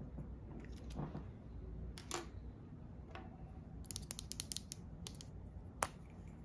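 Small clicks and taps of makeup products and their cases being handled: a few separate taps, a quick run of small clicks about four seconds in, and one sharp click near the end.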